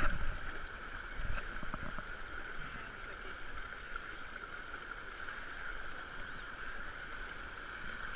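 Shallow stream running over stones, a steady rushing, with a few low thumps in the first two seconds.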